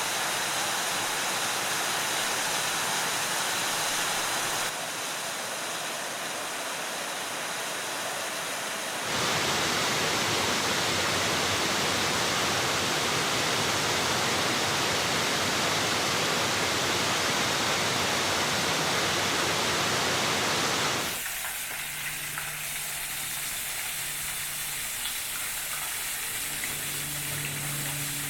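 Waterfalls rushing: a steady hiss of falling water that changes abruptly between falls, softer after about five seconds, much louder and fuller from about nine seconds, then thinner and quieter for the last stretch, where a faint low hum appears.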